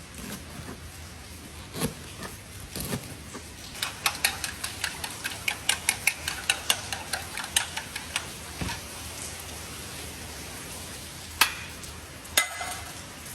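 Knife chopping garlic sprouts on a cutting board: a quick run of chops, about five a second, for some four seconds, with a few single knocks before and two sharp clicks near the end.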